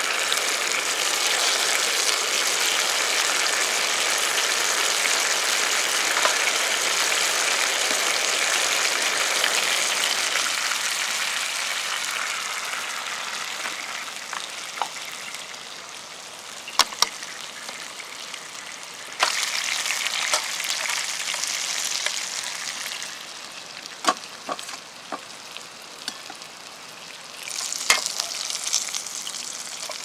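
Gyoza frying in a frying pan: a loud hissing sizzle as the lid comes off and the steaming water cooks away, dying down after about ten seconds. Then quieter frying, with a few sharp clicks and two more surges of sizzling.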